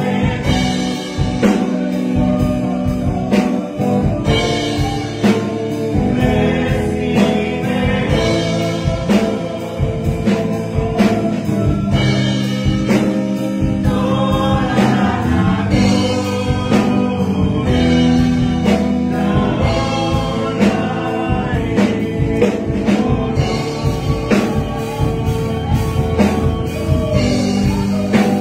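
A man sings a Spanish-language worship song into a microphone over instrumental accompaniment with a steady drum beat.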